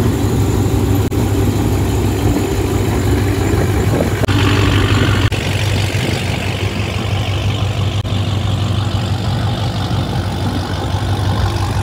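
Car engines idling, a steady low running note with a haze of exhaust noise. The sound changes abruptly a little past four seconds, again about a second later, and near eight seconds, as clips of different cars are cut together.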